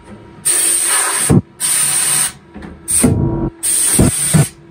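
Compressed-air spray gun inside a parts-washing cabinet, triggered in four short spray bursts of washing liquid and air, each under a second, with the fluid tap open.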